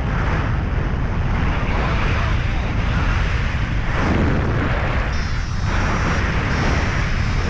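Wind rushing and buffeting over the microphone of an action camera in flight under a paraglider, a loud steady rumble.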